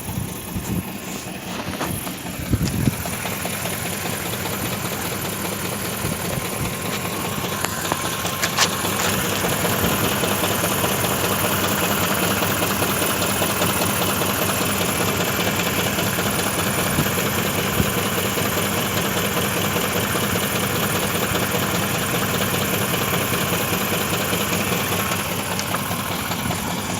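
BMW engine idling with a knock in the engine, the fault the owner is recording. A few sharp knocks come in the first seconds, then the engine runs steadily and gets louder about eight seconds in.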